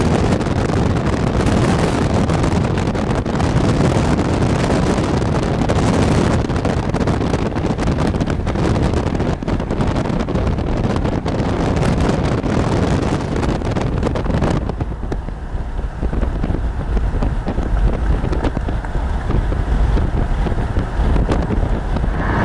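Strong thunderstorm wind buffeting the microphone with a steady rush. About fifteen seconds in, the high hiss falls away, leaving a low rumbling buffet.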